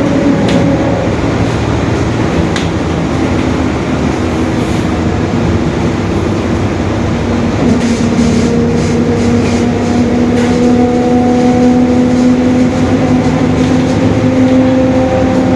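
Mercedes-Benz OF-1721 Bluetec 5 bus under way: a steady diesel rumble and road noise. From about halfway through, a whine rises slightly and then holds its pitch: the differential growling.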